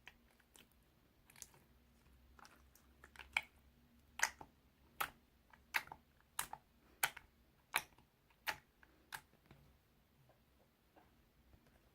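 A series of sharp clicks or taps: a few faint ones at first, then about nine louder ones evenly spaced, a little under one a second, stopping about three seconds before the end.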